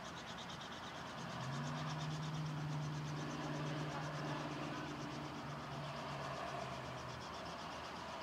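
Small helicopter running on the ground with its main rotor turning, heard from afar as a steady drone with a fast, even pulsing. A low droning tone swells about a second in and fades near the end.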